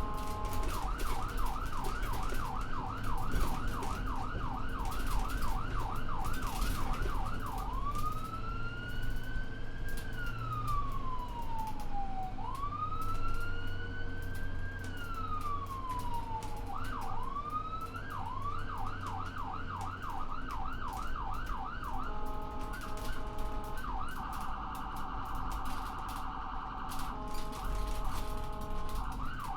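Ambulance electronic siren on a moving vehicle, cycling through its modes. It opens with a fast yelp of about three sweeps a second, then gives two slow wails that rise and fall, and goes back to the yelp. Near the end it switches to a stepped two-tone pattern and a very fast warble. A low vehicle rumble runs underneath.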